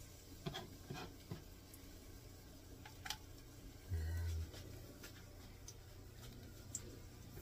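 Quiet kitchen room tone with a few faint clicks, and a brief low hum about four seconds in.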